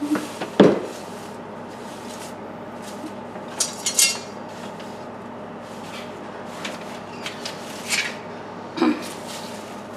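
Scattered knocks, clicks and clatter of hard objects being picked up and moved, with a louder knock about half a second in and a quick cluster near the middle, over a steady faint hum.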